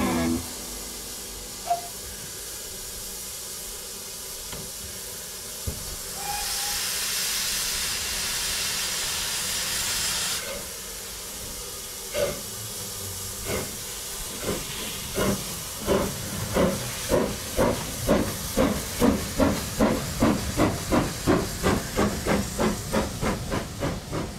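LB&SCR 'Terrier' 0-6-0 tank locomotive starting away: hissing steam from the open cylinder drain cocks, louder for a few seconds about a quarter of the way in, then the sharp exhaust beats of its bark, quickening from about one a second to two or three a second as it accelerates.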